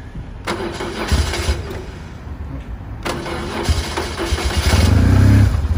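A BMW R1100S's 1085 cc boxer twin being cold-started on its electric starter. It cranks twice with a short pause between, and catches near the end, settling into a steady beat.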